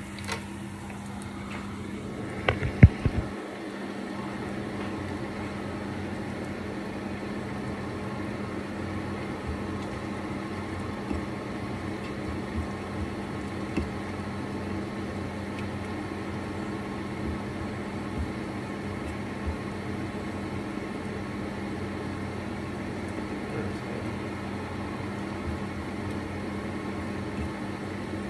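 Leftover meat and chips frying in a covered pan on a gas burner: a steady sizzle over a constant low hum. A few sharp knocks about three seconds in.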